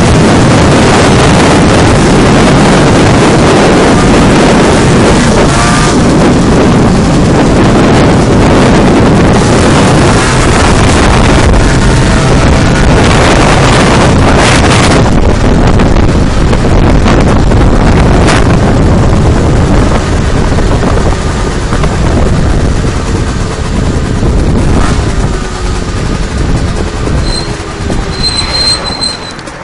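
Peugeot Speedfight 2 scooter on the move, its two-stroke engine mixed into heavy wind rush on a handlebar-mounted camera's microphone. The roar eases off over the last ten seconds as the scooter slows.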